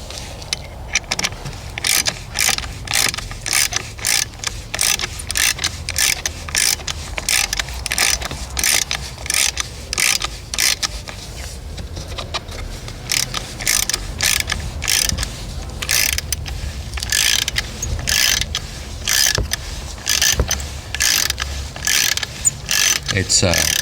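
Ratchet wrench with a 12 mm socket tightening a bolt, its pawl clicking in repeated rasping strokes, two or three a second with short pauses.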